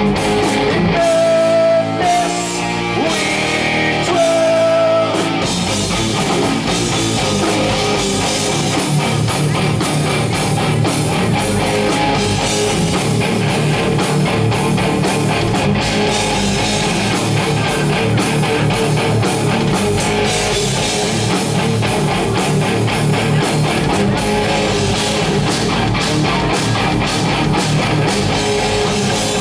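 Live heavy metal band playing: distorted electric guitars through Marshall amps, with bass and a drum kit. A few long held guitar notes in the first five seconds give way to dense, fast riffing over a steady drum beat.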